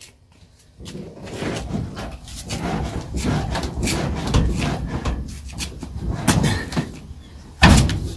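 Rear of a ZAZ Zaporozhets car body rocking under a person's weight as he climbs onto it, with uneven knocks and thuds from the steel body and suspension and a loud thump near the end. The load tests whether the newly fitted rear wheel rubs against the wheel arch.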